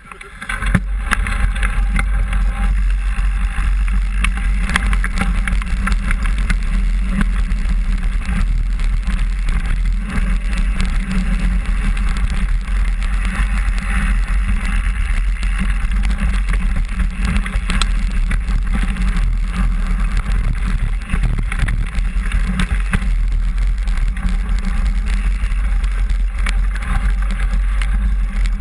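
A mountain bike riding down a forest trail, heard through a handlebar-mounted camera: a steady rumble from the tyres on dirt and leaves, frequent rattles and clicks from the bike, and wind buffeting the microphone. It starts suddenly about half a second in and stays loud and even.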